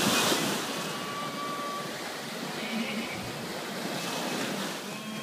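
Small sea waves breaking on a sandy beach and washing up the sand, the loudest break at the very start.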